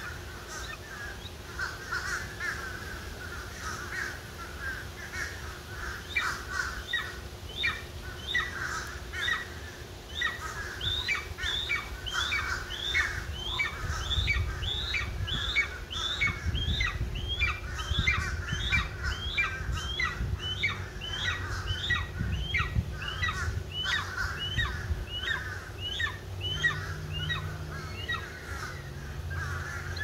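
Golden eagle calling: a long series of short, high yelps, scattered at first and then quickening to about two a second through the middle.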